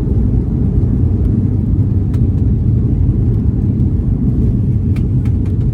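Steady low rumble inside the passenger cabin of a Boeing 737 airliner, with a few faint clicks or rattles near the end.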